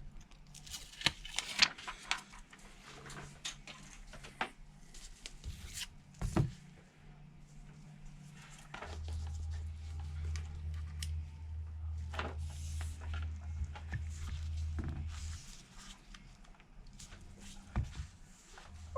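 Small clicks and taps from hands and tools handling phone parts on a workbench, with a steady low hum for several seconds in the middle.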